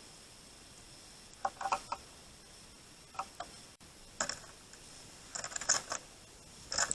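Small birds at a feeder: irregular little clusters of taps and clicks, about five bursts, as they peck and move about on the feeder.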